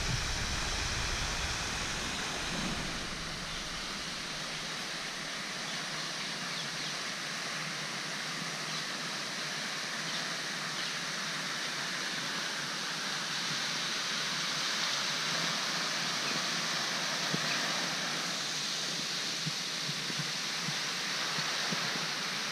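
Steady rushing hiss of water from pond fountain jets falling back into the water.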